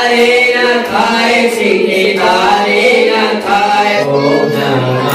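Several voices singing a Hindu devotional chant together on a held, sung melody.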